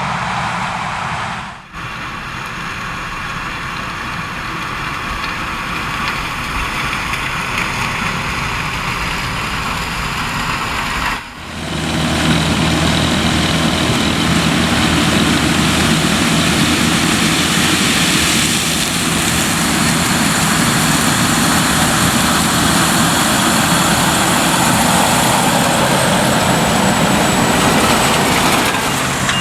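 Claas Lexion 770 TerraTrac combine harvester at work harvesting corn: its 16-litre Mercedes-Benz V8 diesel and threshing machinery make a steady drone. The sound drops out briefly twice, about 2 and 11 seconds in, and is louder after the second break.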